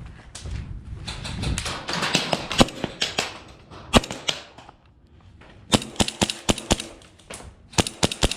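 Airsoft guns firing: sharp cracks in quick clusters. A run of shots comes over the first few seconds, one loud single shot about four seconds in, and another quick string from about six seconds in to the end.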